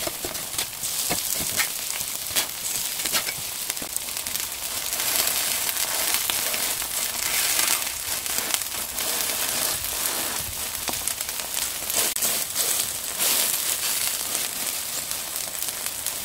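Battered oyster and chive pancakes frying in hot oil in a pan: a steady sizzle with frequent sharp crackles and pops.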